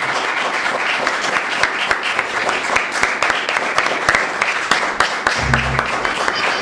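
Theatre audience applauding, a dense steady patter of many hands clapping. About five seconds in, music with a deep bass line starts under the applause.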